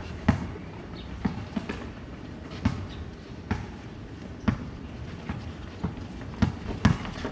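Basketball bouncing on a concrete court during play: irregular thuds about once a second, with players' footsteps.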